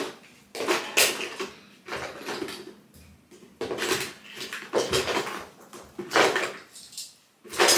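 Household clatter: a series of separate knocks, clicks and rattles of small hard objects being handled and set down, with short quiet gaps between them.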